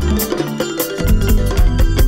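Instrumental passage of a Gambian pop song: a steady beat with strong bass, with no singing.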